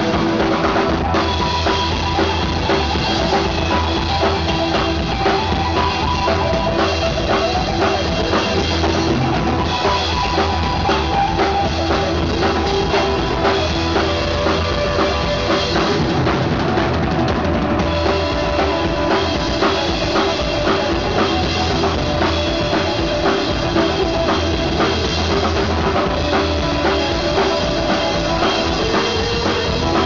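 Live three-piece rock band playing an instrumental stretch with the drum kit to the fore: busy bass drum and snare strokes over held notes from the other instruments.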